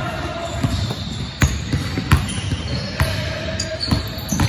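Basketball bouncing on a hardwood gym floor during play, a handful of sharp, unevenly spaced thuds, the loudest about two seconds in.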